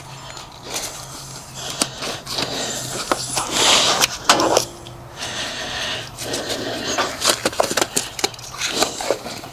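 Wrenches and metal fittings clinking, knocking and scraping while a hydraulic hose fitting is worked loose, with a low steady hum underneath.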